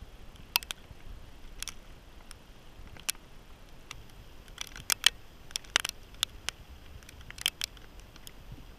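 Wood campfire crackling, with sharp, irregular pops from the burning logs.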